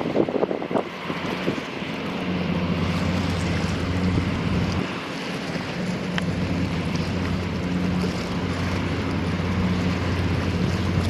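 Steady low machinery hum, like a large engine or generator running, with wind buffeting the microphone. The hum dips briefly about halfway through.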